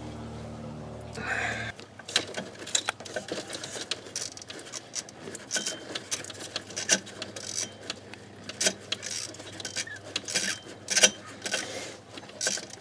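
Hand ratchet on a long extension clicking in short, irregular bursts as it backs out the failed glow plug on cylinder 6 of a Duramax diesel. A low steady hum runs for the first couple of seconds, then stops.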